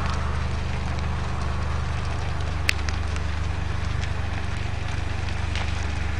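A fully involved house fire burning: a few sharp crackles and pops of burning wood over a steady low rumble.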